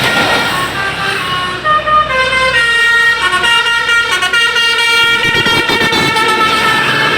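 Basuri multi-tone 'telolet' bus horn playing a tune. Short separate notes come first; from about two and a half seconds in, several horn tones sound together and step up and down in pitch.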